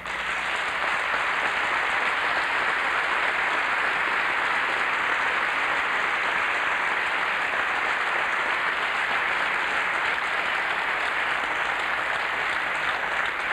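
A large audience applauding, many hands clapping in a dense, even sound that holds steady for over ten seconds.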